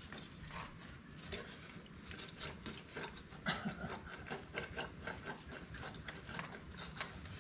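Metal drain-cleaning cable being pushed and worked down an outdoor drain pipe, scraping and clicking irregularly against the pipe, to clear a drain clogged with dirt and sand.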